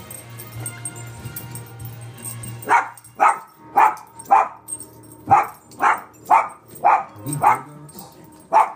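A small dog barking repeatedly, starting a little under three seconds in. It gives about ten sharp barks at roughly two a second, with one short pause in the middle.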